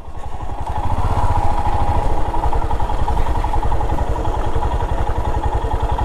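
Motorcycle engine running while the bike rides along, with a rapid low pulsing beat; it grows louder over about the first second, then runs steadily.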